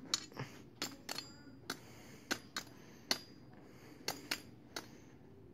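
Katana blade stabbing repeatedly at a broken fidget spinner: about a dozen sharp, light clinks at irregular intervals.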